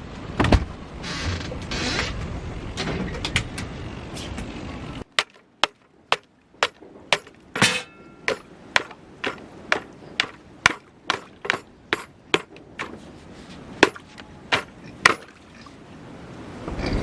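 Footsteps crunching on frozen ground: some rustling at first, then from about five seconds in a steady walking rhythm of sharp crunches, about two a second. A loud rushing noise rises near the end.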